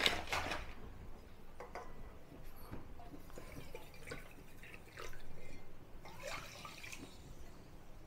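Water being poured into a pan to make sugar syrup: faint dripping and splashing, with a louder stretch of pouring about five seconds in.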